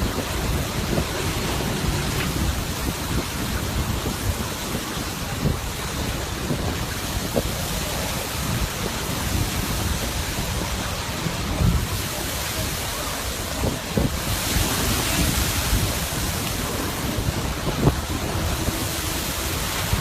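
Steady rushing noise of wind and sea surf from the open water, with wind buffeting the microphone and giving a heavy low rumble.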